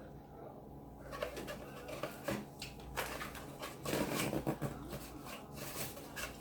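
Close-up eating sounds: chewing and wet mouth smacking with many small clicks, starting about a second in, and a short low hum near the middle.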